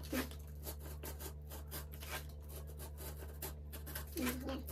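Snap-off utility knife blade cutting through stiff corrugated cardboard, a rapid, irregular run of short scratchy strokes as the blade saws along the curve.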